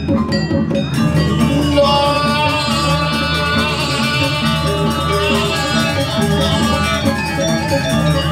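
Balinese gamelan music: an ensemble of tuned metal percussion and drums playing a steady, rhythmic melody to accompany a dance.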